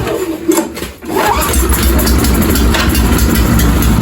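Briggs & Stratton 305cc snowblower engine on an Ariens Deluxe 30 being cranked on choke. It catches about a second in and then runs steadily.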